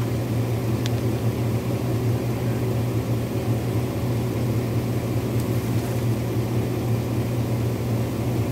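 A vehicle engine idling steadily with a constant low hum. There are a couple of faint cracks from branches being pulled.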